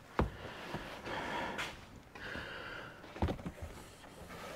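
Light knocks and rubbing as a molded car headliner panel is worked through a door opening, with a sharp knock just after the start and another about three seconds in, and soft breathing close to the microphone between them.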